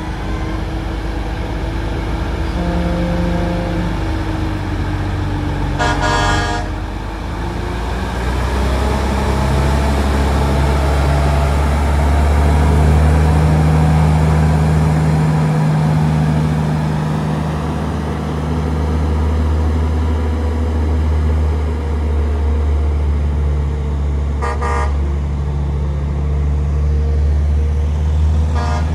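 Big-rig semi trucks' diesel engines running loudly as they go by, with two short truck air-horn blasts, one about six seconds in and one near the end.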